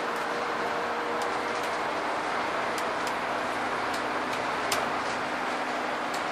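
Scania N230UD Enviro 400 double-decker bus heard from on board while driving: steady engine and road noise with a faint whine that fades out about two seconds in. Interior fittings give scattered clicks and rattles, with one sharper knock near the end.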